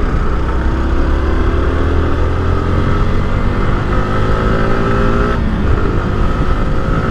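Sport motorcycle engine pulling hard as the bike accelerates, its pitch rising steadily; about five seconds in it dips briefly for a gear change, then climbs again.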